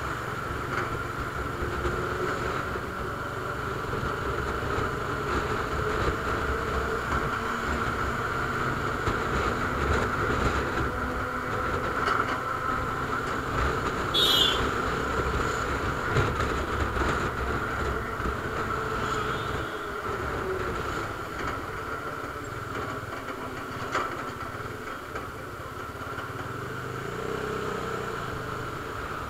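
Bajaj Dominar 400 single-cylinder motorcycle riding at a steady pace, its engine mixed with wind rushing over the microphone, plus a brief high chirp about fourteen seconds in.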